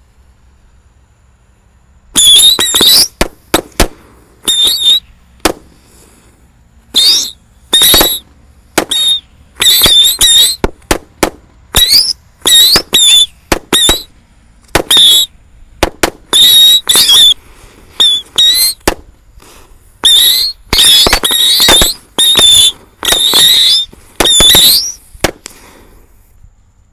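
A 50-shot box of mercon tikus ('mouse' firecrackers) firing from a hole in the ground. About two seconds in it sets off a rapid, irregular string of dozens of short, shrill, wavering screeches, with sharp cracks among them, which stops shortly before the end.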